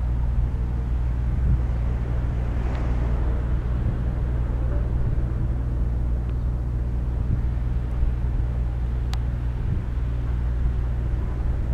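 Low, steady engine drone of a large general cargo ship under way, heard across the water, with one sharp click about nine seconds in.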